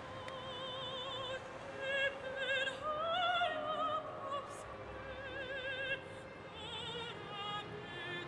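A soprano singing an operatic aria, holding long notes with a wide vibrato as the melody climbs and falls.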